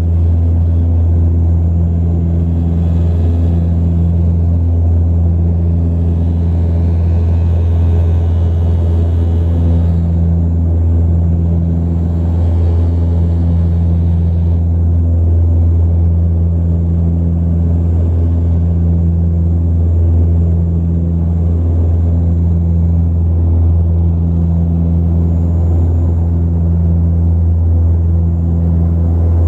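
The Antonov An-24RV's Ivchenko AI-24A turboprop engines and propellers, heard inside the cabin in flight as a loud, steady low drone. A throbbing beat in it swells and fades about every two and a half seconds, typical of the two propellers turning slightly out of step.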